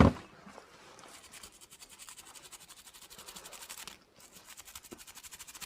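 Rapid, faint back-and-forth scrubbing of a small brush on a phone circuit board, cleaning flux off a freshly soldered USB Type-C charging port. The strokes pause briefly about four seconds in, then start again.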